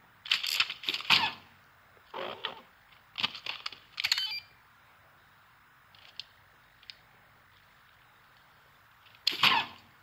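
Short clusters of sharp plastic clicks and rattles, a sound effect of Buzz Lightyear's switch being flicked. Four clusters come in the first half, two faint ticks follow, and one more cluster comes near the end.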